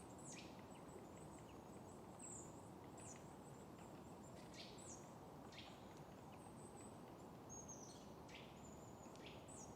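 Faint outdoor ambience with small birds calling: short, high, quick downward-sweeping chirps repeated every second or so over a soft background hiss.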